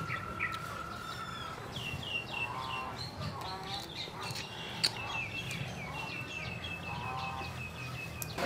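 Birds calling in the background: a long run of quick, repeated high chirps, with softer, lower calls in between. There is one sharp click about five seconds in.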